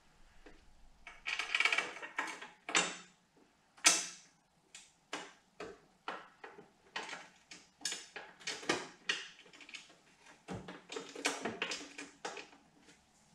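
Irregular clusters of short metallic clicks and clinks from a small hand tool turning a bolt at the fender strut of a Harley-Davidson Dyna Fat Bob, as a saddlebag mount is fastened. The sharpest click comes about four seconds in.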